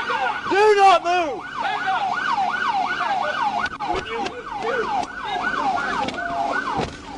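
Police siren in yelp mode, its pitch rising and falling rapidly about three times a second. In the first second and a half a louder, lower tone swells and falls twice over it.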